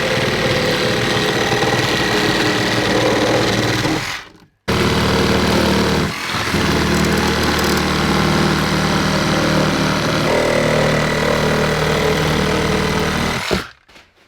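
Reciprocating saw cutting through a plywood-sheathed wall for a window opening, running loud and steady. It stops for a moment about four seconds in, starts again, and cuts out shortly before the end.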